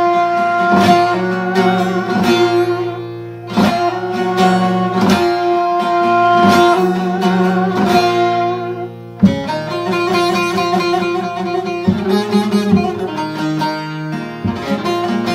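Instrumental music led by a plucked string instrument over a steady low drone, with regular strummed strokes; the tune shifts to a new section about nine seconds in.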